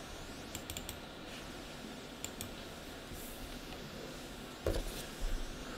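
A few light, scattered clicks of a computer keyboard over quiet room tone, with a couple of soft thumps near the end.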